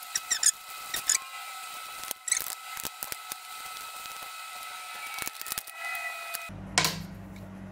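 A toothbrush scrubbing the Royal Enfield Himalayan's metal throttle body wet with petrol: short scratchy brush strokes with light clicks and knocks as the part is handled, over a faint steady tone. A low hum comes in near the end.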